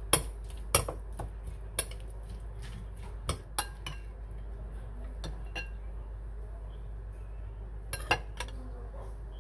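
Kitchen dishes and utensils clinking and knocking now and then, single sharp clinks spaced irregularly, with two close together near the end.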